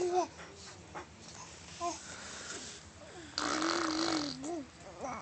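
Vocal noises: short, wavering, squeaky sounds, then from about three seconds in a longer, breathy, wheezing sound with a wavering tone under it.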